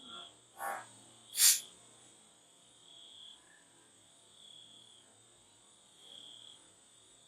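A single sharp shot from a Glock 17 9mm pistol about a second and a half in, with a fainter knock just before it. Crickets chirp in slow, regular pulses throughout.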